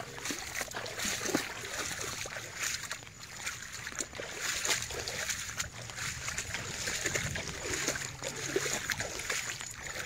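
Shallow floodwater splashing and sloshing, as with steps wading through it, with many small splashes over a faint steady low hum.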